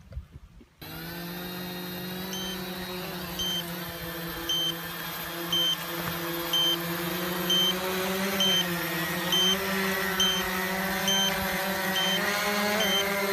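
Quanum Nova (Cheerson CX-20) quadcopter's brushless motors spinning up about a second in, then running with a steady, slightly wavering hum. A short high beep repeats about once a second over it, coming a little faster near the end.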